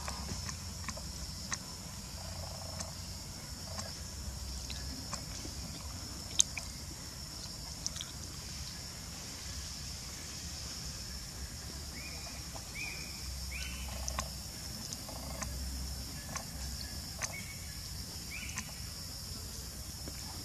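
Steady high insect drone, with a few short high-pitched calls in the second half and scattered small clicks.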